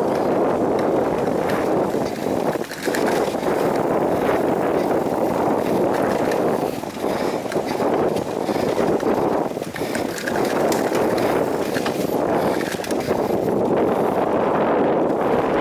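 Wind rushing over the camera microphone as a bicycle rides a dirt single track, mixed with tyre noise and small rattles over bumps in the trail. The rush dips briefly a few times.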